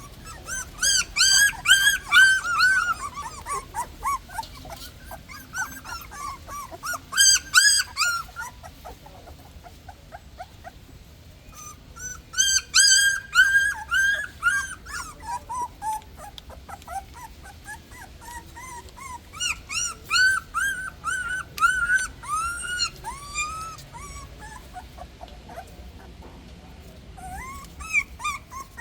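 Newborn puppies squealing and whimpering: rapid, high-pitched squeaks in several bouts, with short pauses between them.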